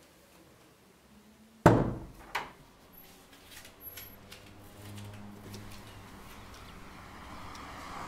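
An interior door bangs shut about a second and a half in, with a second, smaller knock just after. Faint scattered ticks and a low hum follow.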